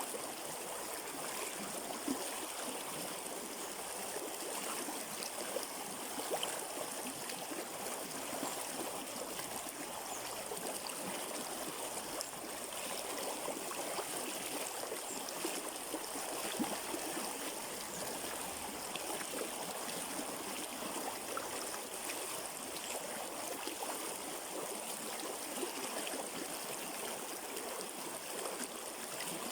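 River water flowing: a steady rush of running water with small irregular splashes.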